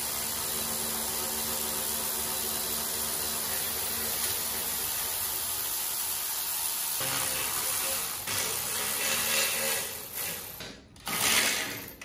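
Cordless electric ratchet running steadily for about seven seconds as it spins out a bolt on a rusty steel mini bike frame, then several shorter, uneven bursts.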